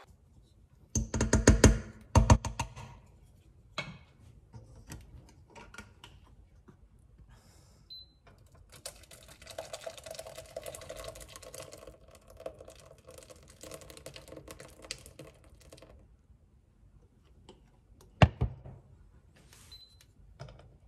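Kitchen handling sounds: a stainless steel pot and wooden spoon clatter with several loud knocks about a second in, then hot fruit jam pours in a noisy stream into a mesh sieve over a bowl for several seconds. Near the end the pot is set down with one loud clunk.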